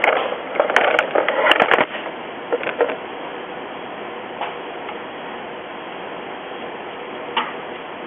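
Sharp plastic clicks and rattles of a cover's retaining clip being popped open and the cover handled, dense for about the first two seconds. After that a steady hiss with a few faint ticks.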